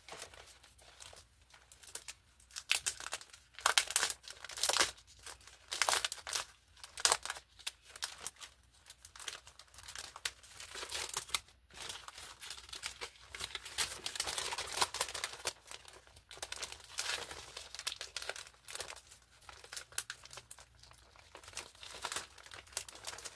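Plastic packaging crinkling and rustling in irregular bursts as a clear plastic sleeve holding stencil sheets is handled and turned over on top of plastic mailer bags.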